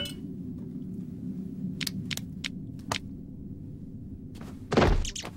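Cartoon sound effects of stones and debris clicking as rubble is dug through by hand: four short clicks about two seconds in, then a heavier thud near the end, over a steady low rumbling drone.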